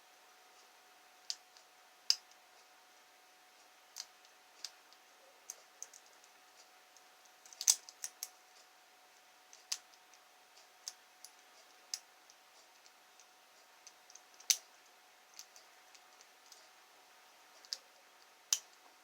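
Small, sharp metallic clicks at irregular intervals, some in quick clusters, from a lock pick and tension tool working the pin tumblers inside a pin-tumbler lock cylinder.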